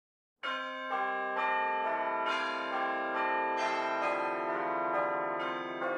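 Bell-like intro music: ringing chime notes struck one after another about twice a second, each ringing on and overlapping the next, the whole slowly fading towards the end.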